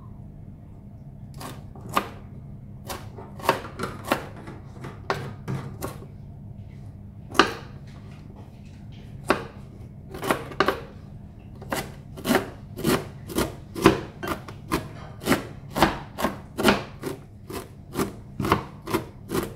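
Kitchen knife chopping shredded cabbage on a cutting board: the blade knocks on the board, scattered at first, then a steady chop of about two strokes a second from about twelve seconds in.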